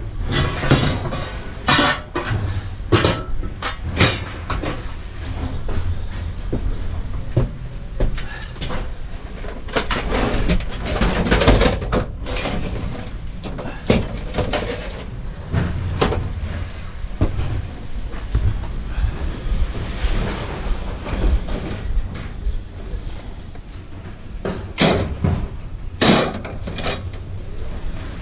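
Scrap metal pieces clanking and knocking as they are handled, sorted and dropped, in irregular bursts over a steady low rumble.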